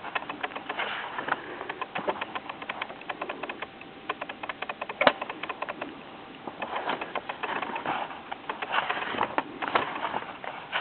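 Paper pages of a soft-cover book rustling and flicking as it is leafed through, a rapid run of small clicks and rustles with one sharper click about five seconds in.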